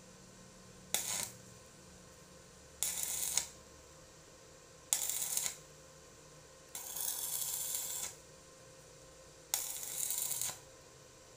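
Five short bursts of hiss, each lasting about half a second to just over a second, starting and stopping abruptly, with quiet gaps of one to two seconds between them.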